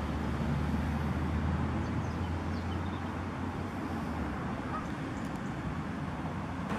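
Steady outdoor background noise by a park lake: a low rumble that eases about four seconds in, with a few faint high chirps.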